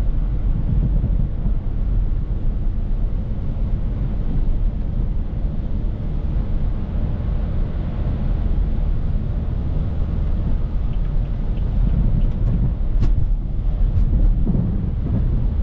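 Inside the cabin of a BMW F30 335i with its N55 turbocharged straight-six, driving slowly on a snowy road: a steady low rumble of engine and tyres on snow. Near the end come a few sharp knocks, the front splitter hitting chunks of ice on the road.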